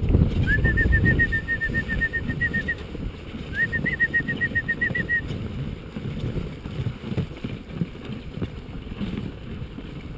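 Dog sled running over a snowy trail behind a husky team: a steady low rumble of runners and wind. In the first half come two quick runs of high squeaky chirps, about six a second, each run lasting a second or two.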